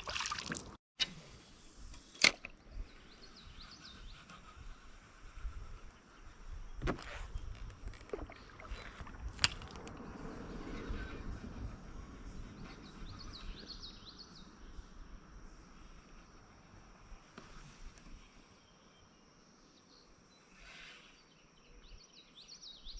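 Faint water sloshing around a kayak on a creek, with a few sharp knocks and clicks of gear against the boat.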